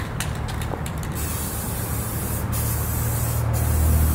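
Aerosol spray-paint can rattling as it is shaken, its mixing ball clicking rapidly, then spraying from about a second in: a steady high hiss in passes of about a second each with brief breaks between them.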